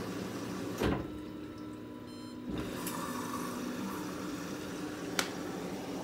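Front-loading washing machine running its wash, the drum turning wet laundry with a steady motor hum. There is a thump a little under a second in and a sharp click about five seconds in.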